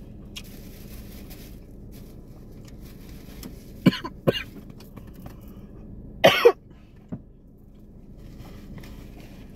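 A woman coughing hard: two coughs about four seconds in, then a louder double cough about two seconds later, as she clears food caught in her throat while eating.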